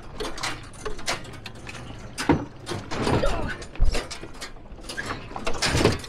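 A ute jolting along a rough, rutted dirt track: its tray and load keep up an irregular rattling and knocking, with a heavy thump about four seconds in.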